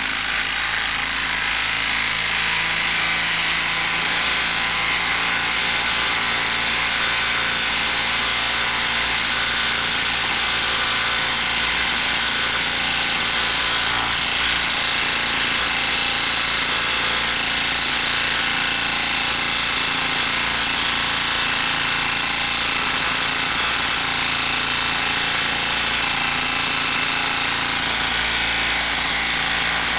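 Milwaukee M12 brushed 12-volt impact driver hammering without a break as it drives a 4.5-inch lag screw into a log through a socket adapter. The rapid impacting stays steady and under heavy load.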